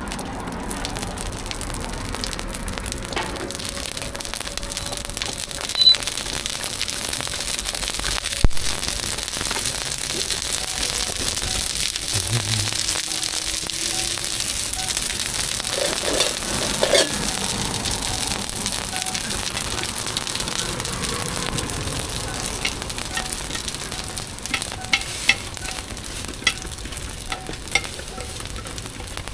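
Food frying in hot oil, a steady sizzle, with a few sharp clicks and knocks, several of them close together near the end.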